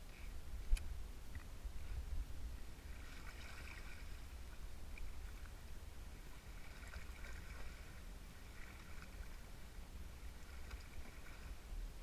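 Wind-ruffled lake water lapping against a fishing boat's hull, with wind rumbling on the microphone throughout and a single sharp click just under a second in.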